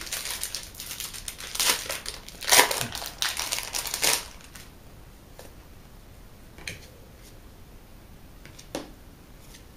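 Foil wrapper of a trading-card pack being torn open and crinkled for about four seconds, then a few soft taps as the cards are laid down on a wooden table.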